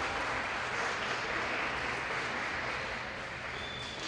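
Audience applauding, an even clapping that fades slightly toward the end.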